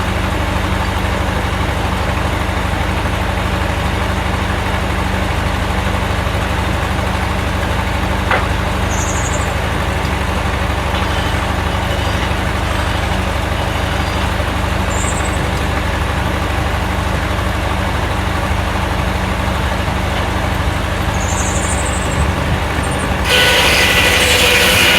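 A heavy engine running steadily at idle. About 23 seconds in, the sound suddenly gets louder and harsher, with a new steady high whine added.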